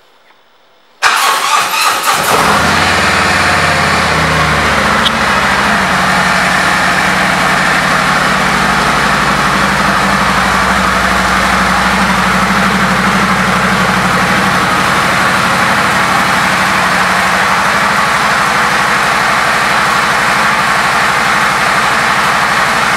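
2017 Harley-Davidson Street Glide Special's Milwaukee-Eight 107 V-twin, fitted with a Heavy Breather air cleaner, starting: it catches suddenly about a second in, runs unevenly for a moment, then settles into a steady idle.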